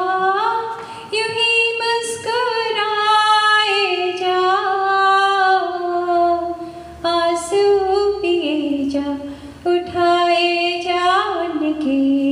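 A woman singing a Hindi film song unaccompanied, in long held notes that bend and slide between pitches.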